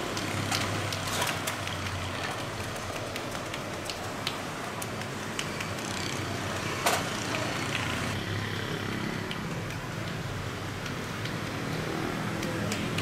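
Street ambience: a steady hiss and hum of road traffic, with scattered sharp clicks and taps, one louder about halfway through.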